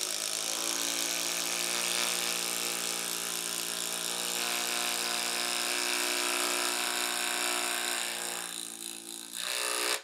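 Makita impact driver, powered by a Milwaukee M18 XC 5.0 Ah battery through an adapter, hammering steadily as it drives a 6-inch Spax screw into a timber: a long, slow drive for this battery-and-tool pairing. The sound wavers about nine seconds in as the screw seats, then stops.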